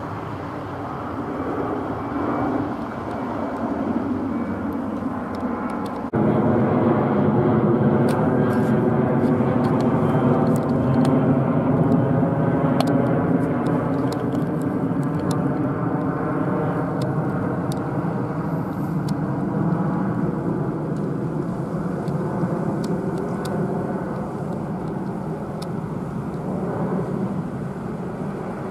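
Jet engines of a Boeing 737-700 (CFM56-7B) at climb power as the airliner climbs out overhead after take-off. A steady jet rumble with slowly shifting hollow tones jumps louder about six seconds in, then slowly fades.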